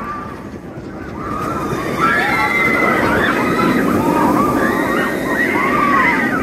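Velocicoaster steel roller coaster train rushing past on its track, a steady rushing roar that swells about two seconds in, with its riders screaming and shouting.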